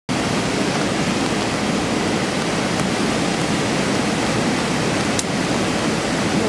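River in full flood: muddy floodwater rushing and churning over debris, a steady, dense rushing noise.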